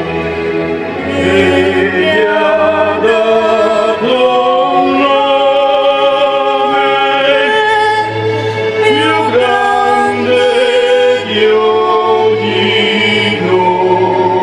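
Choral singing over music, voices holding and moving between sustained notes over a steady low drone.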